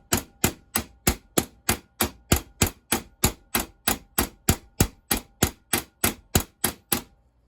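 Ball-peen hammer peening down the rivets of a replacement sprocket tip on a STIHL chainsaw bar: steady strikes on steel at about four a second with a faint metallic ring, stopping near the end.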